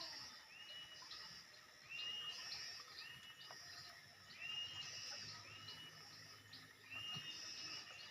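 A small bird calling faintly and repeatedly: a short whistled note that rises quickly and then holds, given about once a second, with thinner high notes above it.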